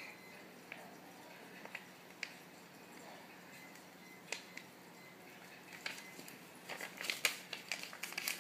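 A small slip of paper handled and folded by hand: a few scattered crinkles and ticks at first, then a dense run of crinkling and creasing over the last two seconds or so.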